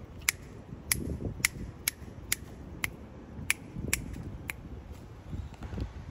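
Cat chewing dry kibble: sharp crunches about twice a second that stop about four and a half seconds in, over a low rumble.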